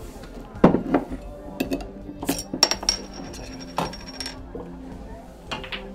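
Glass beer bottle handled on a wooden bar counter: a knock as it is set down, then a run of clinks and clatter. In the middle a thin metallic ringing rattle lasts about two seconds, like a bottle cap spinning on the counter. Quiet bar music plays underneath.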